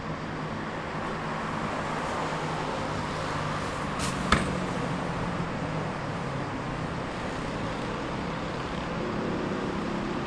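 City street traffic: a steady wash of cars passing, with a low engine hum under it. A single sharp knock stands out a little after four seconds in.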